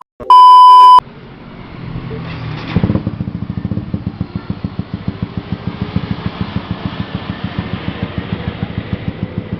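A loud, steady beep lasting about a second at the start, then a motorcycle engine running with an even pulsing beat that grows louder about two seconds in.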